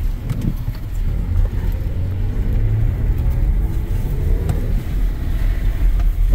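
Cabin noise of a BMW iX M60 electric SUV being driven hard on wet pavement: a steady low rumble of tyres and road, with a faint tone that rises and falls in pitch as the car speeds up and slows.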